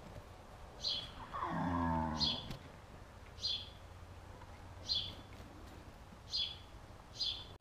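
A horse gives one low call, falling in pitch and lasting about a second, starting about a second and a half in. A bird chirps over and over, about once every second and a half.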